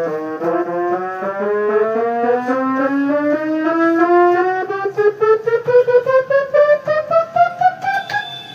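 Electronic keyboard playing a brass-like voice, a run of notes climbing steadily in pitch. The notes are joined at first, and from about halfway they are played as separate, detached notes.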